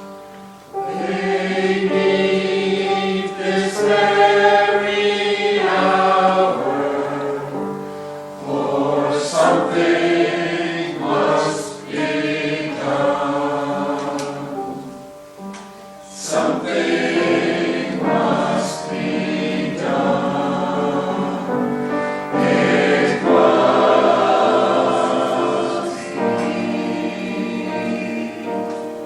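Choir singing a church cantata with accompaniment, in phrases with brief breaks between them.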